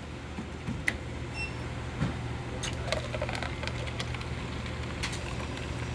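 Steady low machine hum with a few light clicks and knocks scattered through it.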